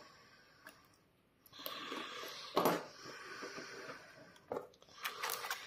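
Cardboard card box and a plastic-wrapped card-sleeve pack being handled. There is rustling from about a second and a half in, with one sharper crinkle, then a few light clicks near the end.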